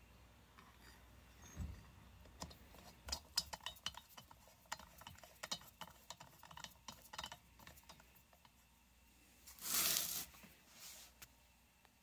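Faint, scattered small metallic clicks and ticks of needle-nose pliers and small cylinder screws being started by hand in a chainsaw cylinder, with one louder half-second noise near the end.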